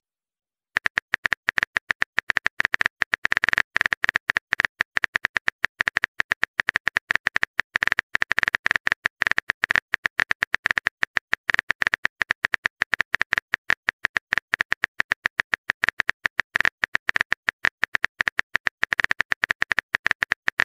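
Phone keyboard typing sound effect: a fast, continuous run of short, bright key clicks, many a second, starting about a second in as a text message is typed out.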